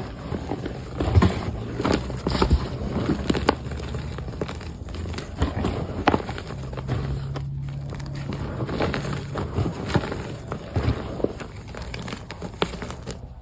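Hands crushing and working crunchy reformed gym chalk in wet powder: a dense, irregular run of crackles and crunches.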